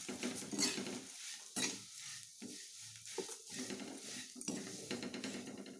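A metal spatula stirring and scraping flattened rice (poha) as it fries in a little oil in a metal kadhai, with a light sizzle. The scraping comes in irregular strokes.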